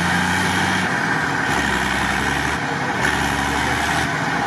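Mercedes Unimog truck's engine running steadily while the truck, bogged to its axles in mud, is being winched out.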